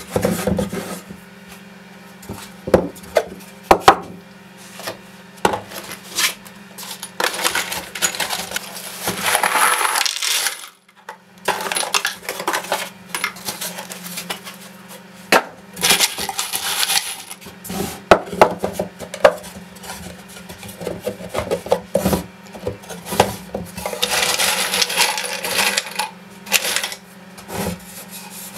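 Small plywood storage bins knocked and set down on a wooden bench, with a load of screws rattling and clinking inside one bin in three longer rattles. A faint steady hum runs underneath.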